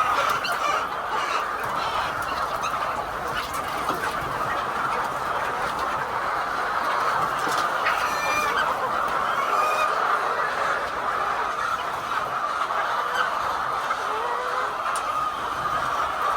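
A large flock of laying hens clucking all at once in a steady, continuous din, with one louder call standing out about eight seconds in.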